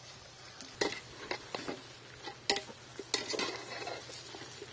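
Metal clinks and scrapes against a large metal cooking pot as a steel plate tips leaves in and a ladle stirs the raw shallots, dried red chillies and tomatoes. The clinks come in several separate strikes, with a busier cluster about three seconds in.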